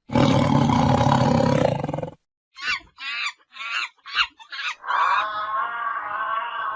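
Animal calls cut one after another: a loud, rough roar for about two seconds, then after a short gap a run of about six short pitched calls, then a long drawn-out cry.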